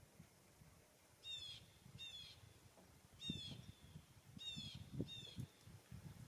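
A bird calling in the woods: five short, harsh calls at uneven intervals, faint, over a low rumble of wind.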